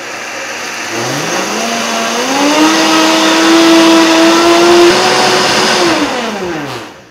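Vitamix blender grinding rolled oats into oat flour. The motor speeds up about a second in, runs steadily at high speed, then winds down and stops near the end.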